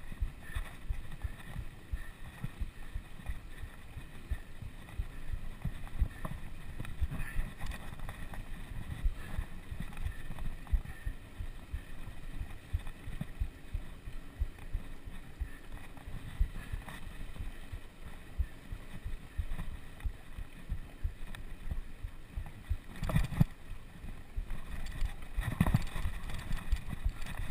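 Wind buffeting the microphone of a camera riding on a mountain bike, mixed with the bike rattling and knocking over rough trail. There are a few louder clunks near the end.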